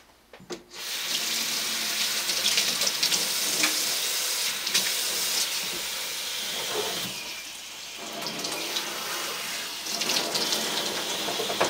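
Kitchen faucet turned on, with a couple of small clicks, about a second in. Water then runs steadily into a stainless steel sink and splashes over a head of hair being wetted, the splash dulling for a moment around the middle.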